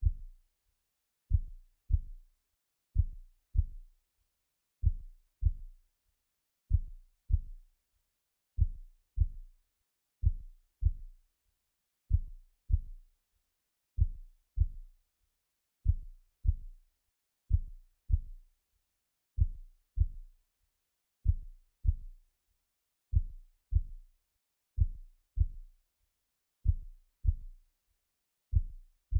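Heartbeat sound: slow, deep double thumps (lub-dub), one pair about every two seconds, with silence between the pairs.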